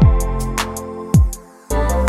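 Background music with a beat: deep bass-drum hits that drop in pitch and quick high ticks, cutting out briefly about one and a half seconds in.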